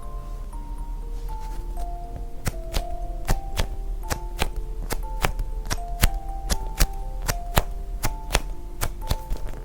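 Background music: a simple, light melody of clear single notes over a crisp clicking beat of about two to three clicks a second, the beat settling in a couple of seconds in.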